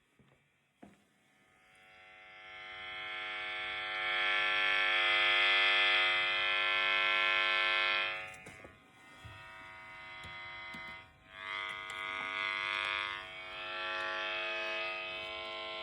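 Electrical interference buzz picked up from a poorly shielded cable and made audible by a detector: a steady buzz with many overtones. It swells over the first few seconds, drops away suddenly about eight seconds in, then comes back at varying strength with a brief gap near eleven seconds.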